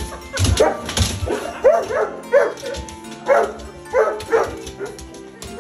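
Leonberger dogs yelping and whining in a quick run of short calls that rise and fall in pitch: excited greeting noises.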